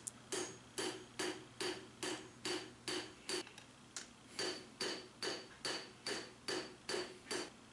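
Hand hammer striking red-hot lawnmower-blade steel on an anvil in a steady rhythm of about three blows a second, with a short pause about halfway. Each blow has a brief high ring. The blows are forging the bevel along the blade's inside curve, which draws the blade straight.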